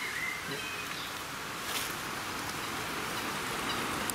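Shallow stream running over stones: a steady, even hiss of flowing water.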